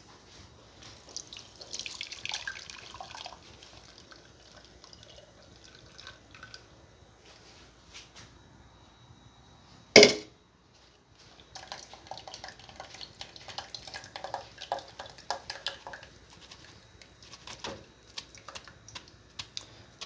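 Blended acerola juice pouring and dripping through a plastic mesh strainer, faint and irregular, with small splashes. A single sharp knock about halfway through.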